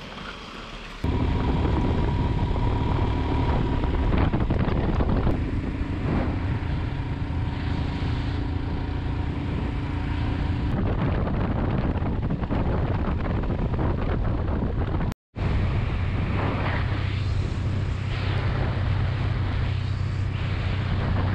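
Riding sound from a Royal Enfield Himalayan 411 motorcycle on a gravel road: steady heavy wind noise on the microphone over the single-cylinder engine, starting suddenly about a second in. It breaks off for a moment about fifteen seconds in, then carries on.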